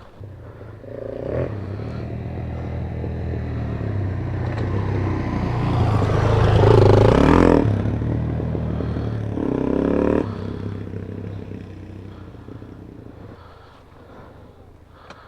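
Trail motorbike engine running, growing louder over several seconds and revving near its loudest point about seven seconds in and again near ten seconds, then fading away.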